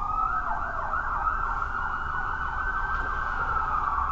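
Police siren wailing: a slow rise in pitch that holds high and begins to fall near the end, with a faster warbling sweep overlapping it in the first couple of seconds.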